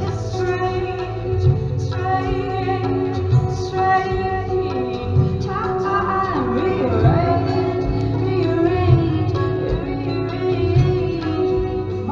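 Live band music: a woman singing, with gliding, ornamented vocal lines midway, over guitar and hand drums.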